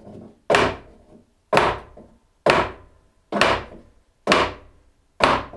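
Joiner's mallet knocking a planing stop up through a workbench top, six sharp wooden knocks about a second apart as the stop's height is raised.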